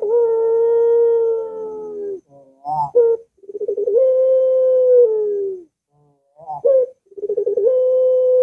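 Ringneck (Barbary) dove cooing in long drawn-out notes: three held coos of about two seconds each. Each opens with a quick stutter and sags in pitch at the end, with short clipped notes in between.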